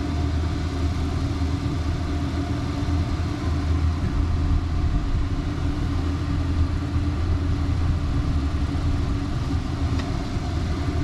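Steady low engine-like hum with a faint higher drone over it, unchanging throughout, and a single faint tick about ten seconds in.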